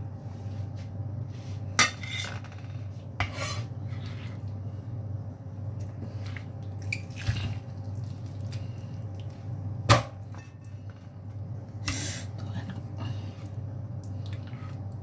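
Knife and utensils knocking and clinking against a plate and cutting board while cooked chicken is cut up, in scattered single knocks with one loud sharp knock about ten seconds in. A steady low hum runs underneath.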